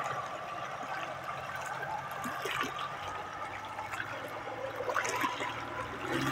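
River water lapping and trickling against the bank as small waves come in, with a few light splashes. Under it runs the low, steady hum of a boat motor, growing a little louder toward the end.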